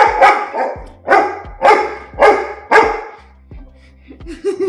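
Labrador retriever barking at a person on its bed: a run of about six loud barks, about two a second, in the first three seconds. These are demanding barks telling the person to get off.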